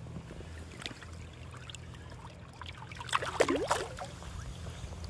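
Shallow river water splashing and swirling as a brown trout is let go from the hand, over the steady low rush of the current. About three seconds in comes a louder burst of bubbly splashing.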